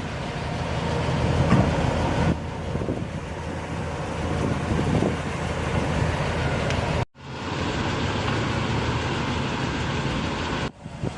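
7.4-litre Vortec 454 V8 of a Chevrolet Silverado 3500 idling steadily, a low even rumble with a hiss over it. The sound cuts out sharply for a moment about seven seconds in and again near the end.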